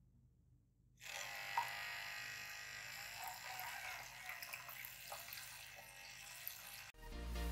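Homemade mini water pump driven by a small DC motor running, with a steady motor whine and a jet of water splashing into a plastic tub. It starts suddenly about a second in and cuts off near the end.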